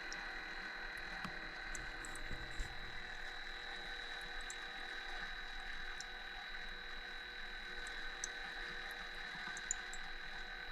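Gevi automatic pour-over coffee machine's water pump running steadily: a constant hum with a thin high whine, with a few faint ticks.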